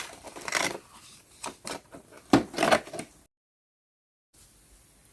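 Rustling and knocking as a toy figure is taken out of its box packaging, in irregular handling sounds. About three seconds in the sound drops to dead silence, then only faint room tone.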